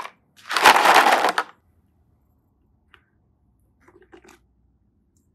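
A crunching noise lasting about a second, followed near the end by a few faint clicks.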